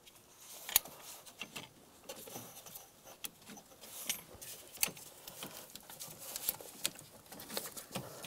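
Rubber coolant hose being worked and slid onto a metal coolant tube by gloved hands: scattered light clicks and taps with soft rustling and rubbing.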